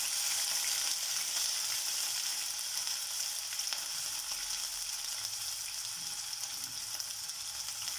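Chopped ginger and garlic sizzling in hot coconut oil in a pan, a steady frying hiss.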